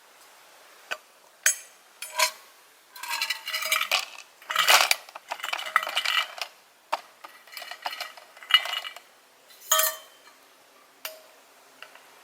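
Metal camp cookware and utensils being handled: scattered sharp clinks and knocks, some with a short ring, with a denser stretch of clattering and rustling in the middle.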